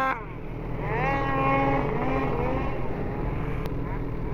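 Two-stroke snowmobile engine: the throttle is chopped just after the start, then it revs up about a second in, holds a steady pitch and eases off.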